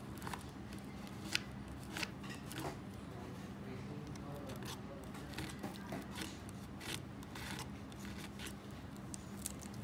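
Palette knife scraping black texture paste over a stencil on a coaster: short, irregular scrapes and clicks, roughly one a second, over a faint steady hum.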